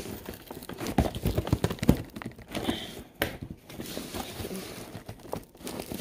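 Scissors working through packing tape on a cardboard shipping box while hands handle the cardboard: a run of irregular clicks, knocks and crinkles, thickest from about one to two seconds in.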